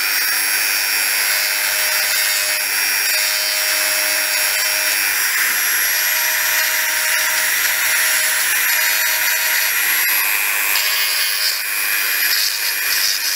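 Dremel rotary tool running at speed with a diamond-pointed bit, grinding leftover paint out of the nooks of a bicycle fork crown: a steady high-pitched whine.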